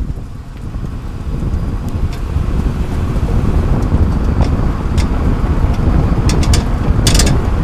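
Road and wind noise from under a moving 30-series Toyota Prius, heard by a microphone mounted beneath the rear bumper: a heavy rumble that grows louder a couple of seconds in, with scattered sharp clicks and a quick run of clicks near the end.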